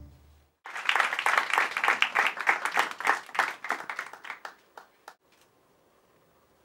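Audience clapping. It starts about half a second in, runs dense for about four seconds, then thins to a few scattered claps and stops.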